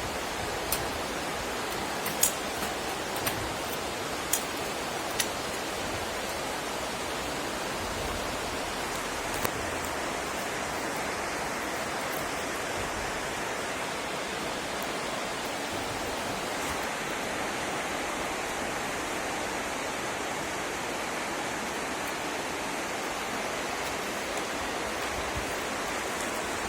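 Wood fire burning in a hexagonal stainless fire grill: a steady rushing of flames with sharp crackling pops from the burning wood, several in the first few seconds and one near the ten-second mark, then an even hiss.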